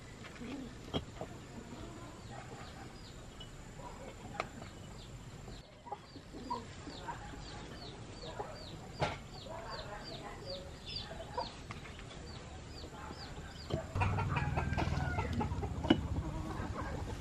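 Chickens clucking, with a run of short, high, falling peeps repeating about twice a second through the middle. Scattered knocks are heard, and a louder low hum comes in about three-quarters of the way through.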